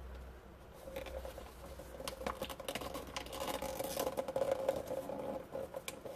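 Wrapping paper being handled, folded and pressed down onto double-sided tape: a run of small scratches, rustles and light clicks.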